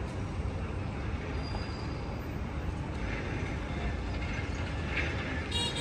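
City street ambience: a steady low rumble of traffic, with a brief high squeal near the end.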